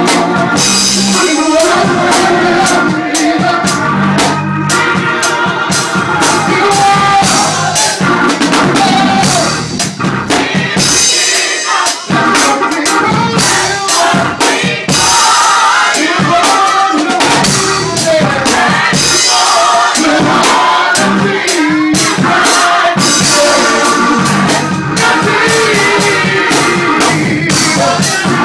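Gospel choir singing loudly, with a lead singer on a microphone and a drum kit keeping a steady beat.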